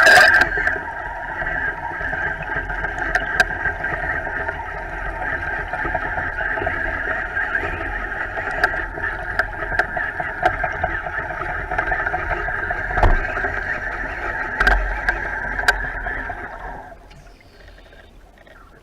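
A motorboat's engine heard underwater, a steady hum with scattered sharp clicks over it, fading away about 17 seconds in.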